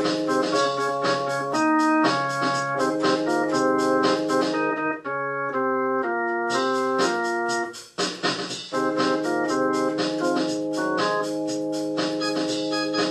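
Organ music: a quick melody of short notes over held chords, with a brief break about eight seconds in.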